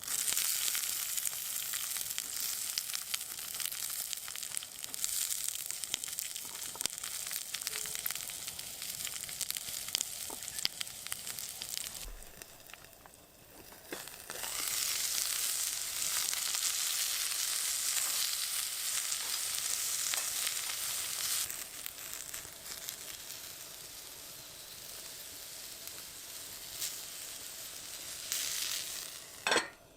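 Food sizzling and spattering in a hot pan: a dense, crackling hiss that dies down briefly about halfway through, comes back, and eases off in the last third.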